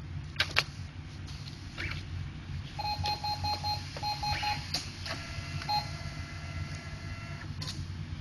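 Brother MFC-J615W inkjet printer during ink cartridge reinstallation: a few sharp clicks as cartridges and parts are handled, a quick run of short electronic beeps, then a steady whine of several tones for a couple of seconds.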